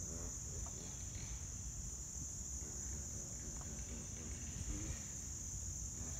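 Steady high-pitched drone of an insect chorus, with a low rumble underneath and faint voices in the distance.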